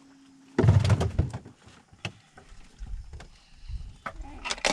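A loud thump about half a second in, followed by scattered light knocks and clicks: handling noise on a small fishing boat as a caught fish is dealt with.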